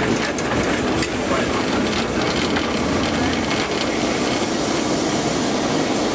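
Lisbon Remodelado tramcar running along street track: a steady rumble of the car with its wheels rattling and clicking on the rails, most clicks in the first couple of seconds.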